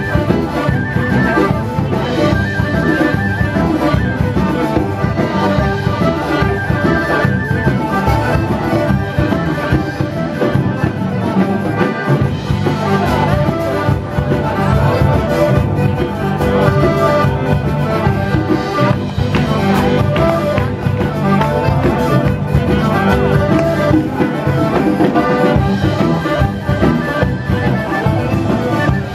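Traditional folk dance music with a steady beat, amplified through loudspeakers.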